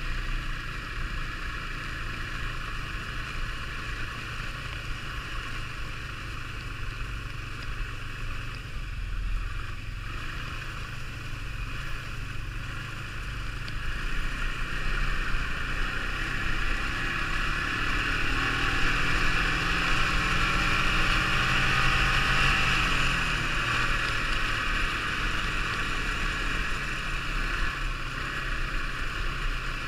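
Snowmobile engine running while riding, with wind rushing past. About halfway through the engine grows louder and its note rises and falls on the climb, then it settles back a little near the end.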